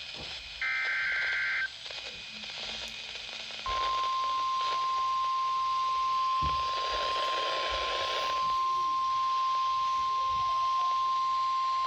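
NOAA Weather Radio Emergency Alert System broadcast. A short screeching SAME digital header burst comes about half a second in. From about four seconds a steady single-pitch 1050 Hz warning alert tone sounds, over radio hiss. The tone signals that a warning, here a severe thunderstorm warning, is about to be read.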